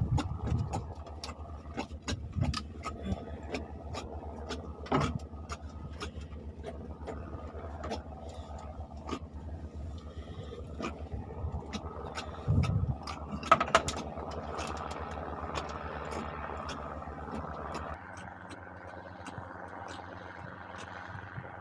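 A steady motor hum, with many sharp clicks and knocks over it; the hum changes pitch and drops a little about three quarters of the way through.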